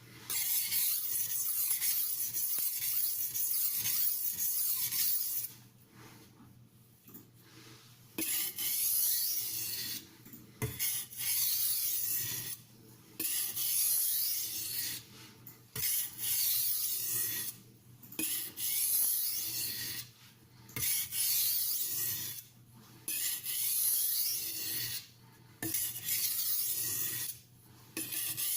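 A stainless steel kitchen knife scraping across a wet silicon carbide sharpening stone in repeated light-pressure strokes, a gritty rasping that comes in runs of a second or two with short pauses between them. The soft, friable stone is releasing abrasive as it cuts.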